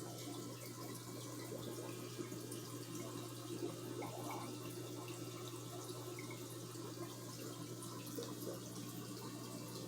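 Aquarium water trickling and splashing steadily, with a low steady hum underneath from the tank's running equipment.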